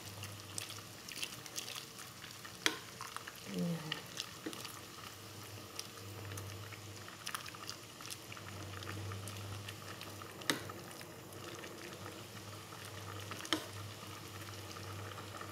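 Soy-sauce broth with shrimp, cabbage, carrots and glass noodles simmering and bubbling in a pan while a wooden spatula stirs it, with a few sharp knocks of the spatula against the pan. A low steady hum runs underneath.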